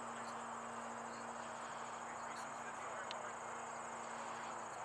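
Crickets chirping in a steady, rapid high pulsing trill, over a faint low steady hum that stops near the end.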